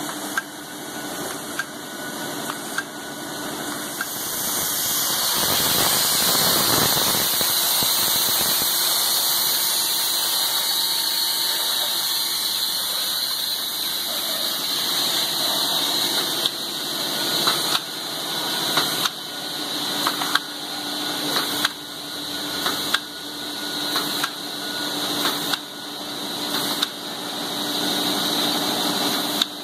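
Envelope folding and gluing machinery running: steady mechanical noise with a sharp click roughly every second and a quarter, each led in by a short rising swell. From about four to sixteen seconds a louder steady hiss covers the clicks.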